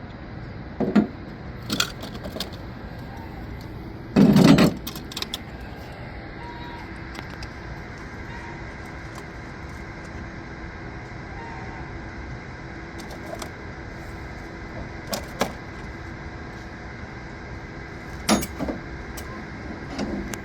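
Scattered metal clanks and knocks as the blade and guide are fitted to a concrete saw, the loudest a short clatter about four seconds in, over a steady background hum.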